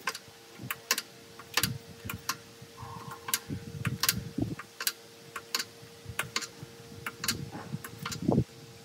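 Irregular sharp taps and clicks, roughly two a second, over a faint steady hum, with a heavier knock near the end.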